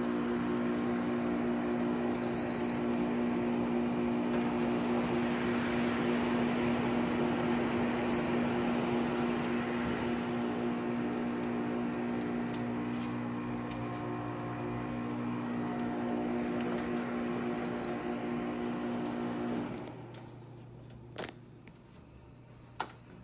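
GE dehumidifier running with a steady hum from its compressor and fan, its control panel beeping three times. About twenty seconds in the unit shuts off and the hum stops, followed by a couple of clicks.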